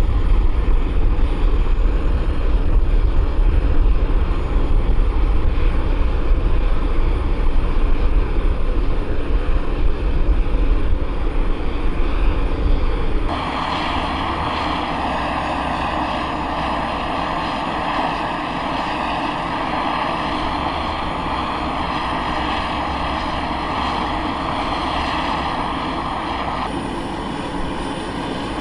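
Aircraft engines running steadily. About 13 seconds in, a cut changes the sound abruptly from a heavy low rumble to a steadier, higher hiss with faint steady tones.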